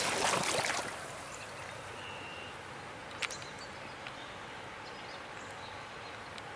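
Water splashing around hands and a fish held in a river's current, then the steady rush of the river flowing, with one sharp click about three seconds in.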